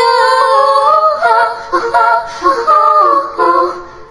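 Music: a high female voice singing a melody in short phrases, fading away near the end.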